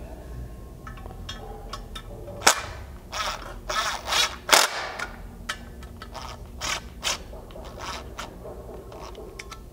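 A series of sharp metallic clicks and clacks, the two loudest about two and a half and four and a half seconds in. They come from fastening stainless 1/4-inch button-head bolts and washers through an aluminum roof-rack side rail into the crossbars with a cordless driver.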